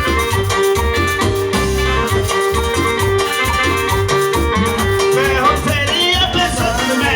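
Latin American band music in an instrumental passage: a steady bass beat under a long held note, which gives way about five and a half seconds in to a bending lead melody.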